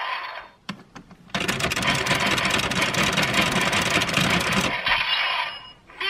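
Bandai DX Geartlinger toy changer set off with a yellow Sentai Gear: a couple of small clicks, then a loud, dense run of rapid clicking and rattling from the toy's effects for about three seconds, fading out in a ringing tail.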